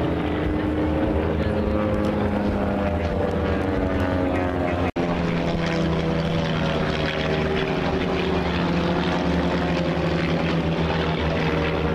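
Propeller airplane engines droning steadily as they fly past, their pitch drifting slowly. The sound drops out for an instant about five seconds in.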